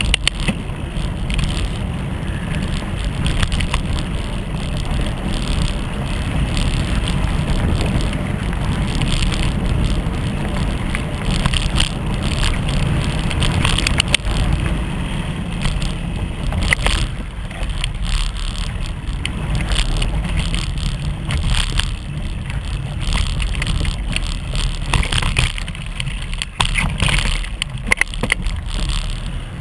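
Mountain bike ridden over a dirt and gravel singletrack, heard through a bike-mounted action camera: a steady low rumble of vibration and wind on the microphone, with frequent clicks and rattles as the tyre and frame go over gravel and bumps.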